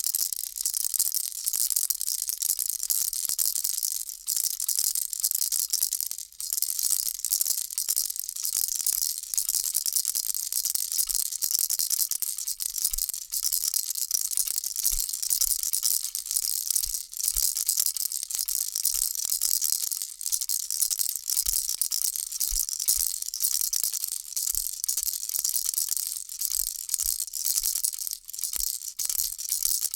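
Baby rattle shaken continuously, a dense high-pitched rattle that goes on steadily with short breaks now and then.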